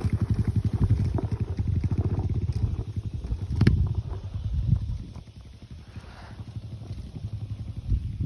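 Stock Kawasaki KLX140G's single-cylinder four-stroke engine running, loud for the first five seconds and then dropping to a quieter putter, with a single knock about three and a half seconds in.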